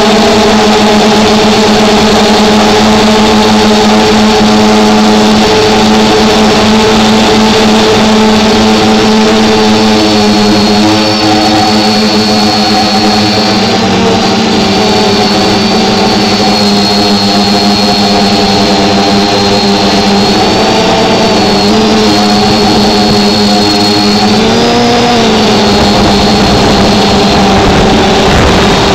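Small drone's electric motors and propellers buzzing loudly right at the microphone, a steady chord of several close pitches with a thin high whine above. The pitches bend briefly twice near the three-quarter mark as the motors change speed.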